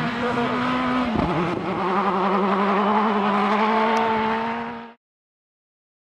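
Rally car engine running hard at high revs, with a brief dip in revs just past a second in, then held high with a wavering pitch. The sound cuts off suddenly near the end.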